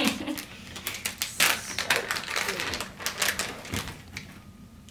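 Rummaging for pet treats: a quick, irregular run of clicks and rattles that thins out near the end.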